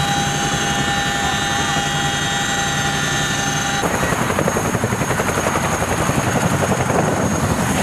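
CH-47 Chinook heard from inside the cabin: a loud, steady whine of turbine and transmission with several held tones. About four seconds in it cuts to the helicopter heard from outside: broad noise with a rapid rotor beat.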